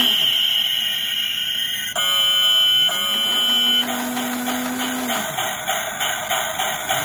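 Background music with long held, steady electronic notes that change pitch every second or two.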